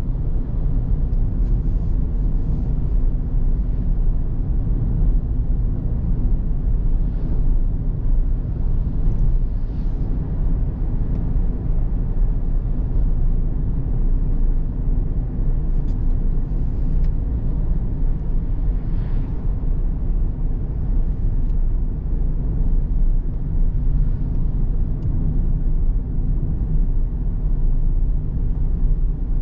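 Car driving along a road: a steady low rumble of engine and tyres, with a few faint swishes now and then.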